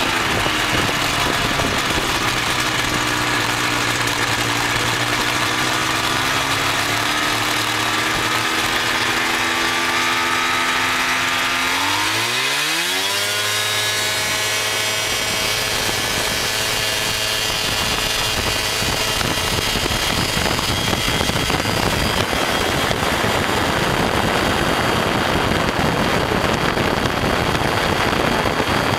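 Ultralight aircraft's pusher engine and propeller running at low throttle while lining up, then opened to full power about twelve seconds in with a sharp rise in pitch. It holds steady at full power through the takeoff roll, as rushing wind on the microphone grows toward the end.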